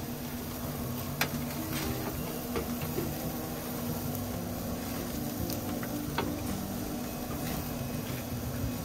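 Pork skewers sizzling on a hot gas grill, with metal tongs clicking sharply against the grate and a metal sheet pan a few times as the skewers are lifted off.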